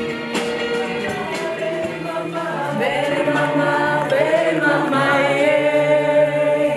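Music: several voices singing long held, chant-like notes together, with a low steady note joining after about a second and a half.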